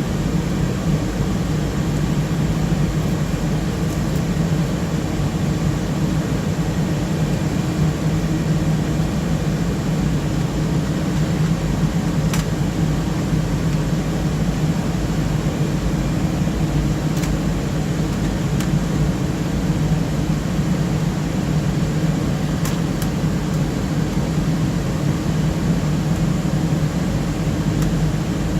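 Server cooling fans running steadily: an even whir with a strong low hum, and a few faint clicks now and then.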